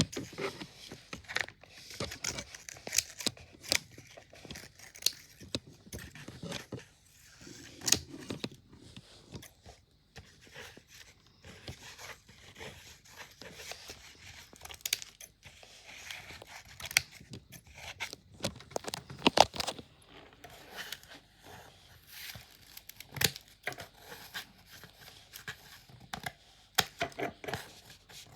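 Cutting fidget board being cut: irregular sharp snips and clicks mixed with crinkly tearing of the board's materials.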